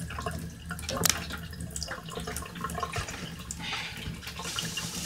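Light knocks and clatter of dishes and utensils at a kitchen counter over a steady hiss, with a sharper knock about a second in.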